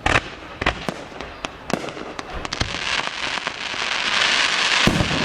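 Fireworks going off: a few sharp bangs in the first two seconds, then a dense crackling that builds and grows louder toward the end.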